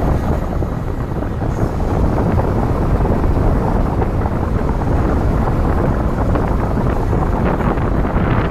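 Steady, loud wind buffeting the microphone of a camera held out of the window of a moving car, with the car's driving noise underneath.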